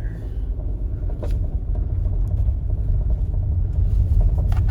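Subaru Forester driving on a dirt and gravel road: a low rumble of tyres and engine that grows steadily louder, with a few faint ticks.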